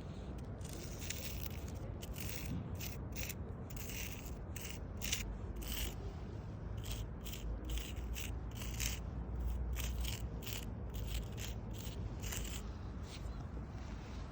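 Footsteps at a walking pace, a series of short sharp steps about two a second, over a steady low rumble of outdoor background noise.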